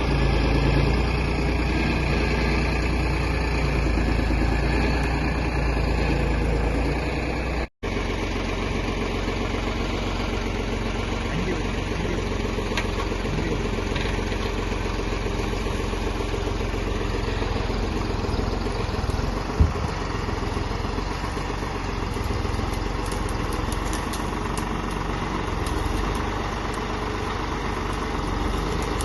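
Heavy machine's diesel engine running steadily at low speed. The sound cuts out completely for an instant about eight seconds in.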